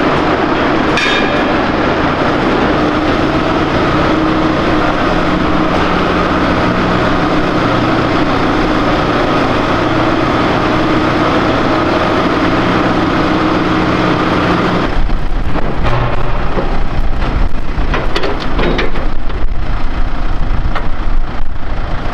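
Farm tractor's engine running steadily while towing a wagon, its pitch shifting slightly a couple of times. About fifteen seconds in the sound changes abruptly to a low rumble with irregular metal clanks and knocks.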